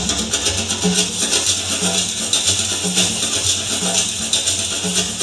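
Music accompanying a dance performance: a low note repeating about once a second under a busy, rattling high-pitched layer.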